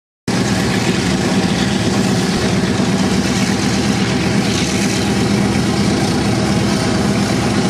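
CAC Boomerang fighter's Pratt & Whitney Twin Wasp radial piston engine running steadily on the ground, propeller turning.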